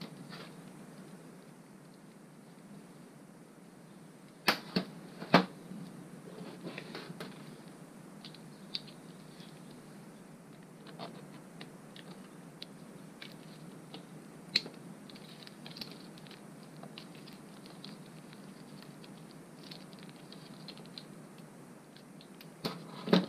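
Clinks and clicks of small metal engine parts and hand tools being handled and set down on a metal workbench. Three sharp clicks come about four to five seconds in, one more near the middle and a cluster near the end, with light tapping in between.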